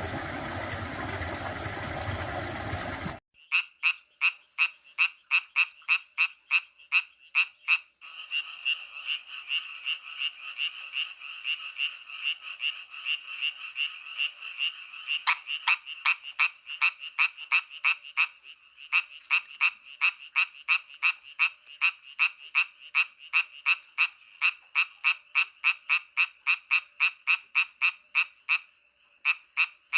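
Frogs calling in a steady rhythm of sharp, pitched croaks, about three a second, with overlapping calls that merge into a continuous trill for several seconds in the middle. It opens with a few seconds of loud, even rushing noise that cuts off abruptly.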